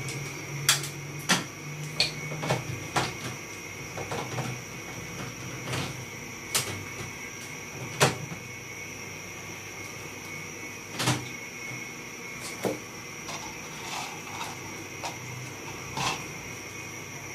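Irregular clicks and knocks of hands and a tool on the plastic parts of a split air conditioner's indoor unit being taken apart, with the sharpest knocks about 8 and 11 seconds in. A steady faint hiss runs underneath.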